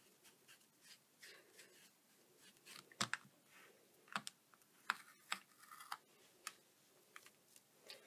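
Faint rubbing of a cloth on a clear acrylic stamp, then a handful of light plastic clicks and taps, the sharpest about three seconds in, as the stamp is lifted off a plastic stamp-positioning platform.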